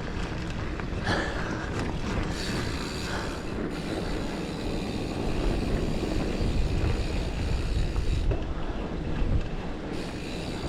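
Giant Fathom mountain bike rolling along a dirt singletrack: steady tyre rumble and drivetrain rattle, with a few knocks from the bumps and wind on the microphone.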